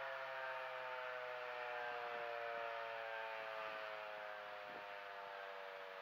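American Signal T-128 electromechanical outdoor warning siren winding down, its chord of tones sliding slowly lower in pitch and fading.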